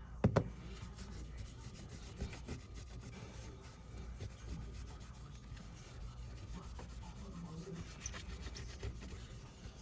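Small hand-work sounds of a phone being worked on at a bench: faint rubbing and scraping with a few light ticks, and a sharp double knock just after the start, over a steady low hum.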